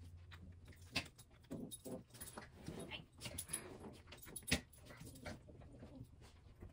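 Small plastic clicks and handling rustles from a glitter glue tube being fiddled with and squeezed. There is a sharper click about a second in and the loudest one a little past the middle.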